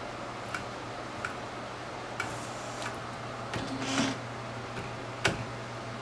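AnaJet direct-to-garment printer with a steady low hum, and irregular sharp clicks and ticks from its mechanism, the loudest about five seconds in, with a short low buzz just before four seconds. No hiss is heard.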